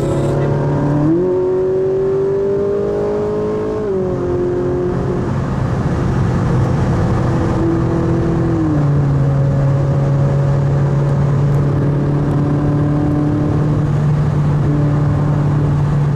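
Ferrari 458 Italia's V8 engine heard from inside the cabin while driving. The note rises gently over the first few seconds, steps down twice, near four and nine seconds, then holds steady.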